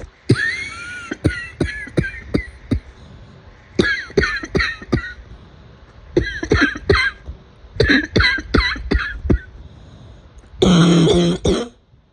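A person in a coughing fit: quick runs of four to six sharp coughs with short pauses between them, then a longer, louder cough near the end.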